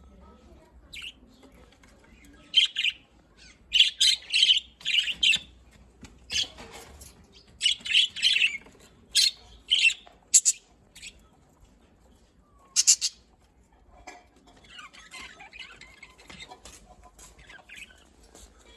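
Budgerigars chirping and squawking in short, sharp, high calls that come in clusters, followed near the end by softer, quicker warbling chatter.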